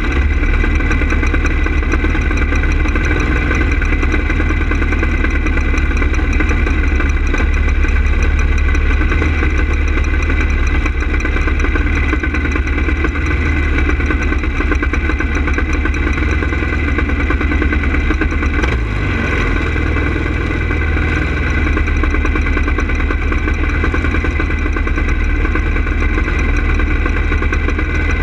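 Go-kart engine idling steadily, with a short dip in level about two-thirds of the way through.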